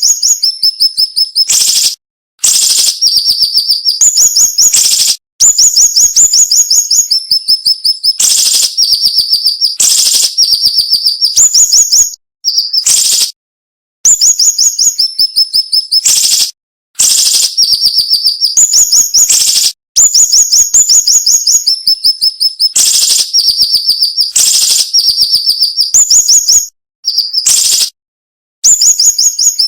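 Siri-siri bird singing: phrases of rapid, sharp, high chirps, each phrase stepping down in pitch, repeated with short pauses between. This is the quick, dense, piercing song that bird keepers use as a training recording.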